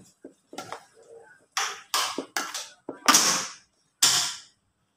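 A pink plastic paddle scraping and stirring grated coconut and mashed taro in a black pot, in about six rough strokes. The loudest stroke comes about three seconds in.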